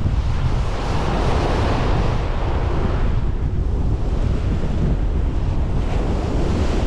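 Wind buffeting the microphone with a heavy, steady rumble, over waves washing onto a beach; the rush of surf swells about a second in and again near the end.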